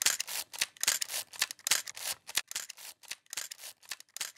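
Irregular quick clicks and scratchy rustles, several a second, with no steady tone beneath them.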